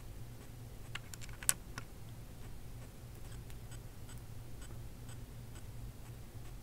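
Faint background noise of a silent film transfer: a steady low hum with soft, regular ticking about twice a second, and a short cluster of sharper clicks about a second and a half in.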